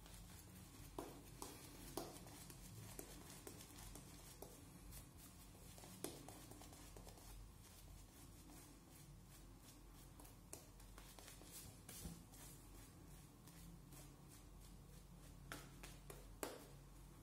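Faint soft brushing of a shaving brush working lather over a wet face, with a few scattered light clicks and taps over a low steady hum.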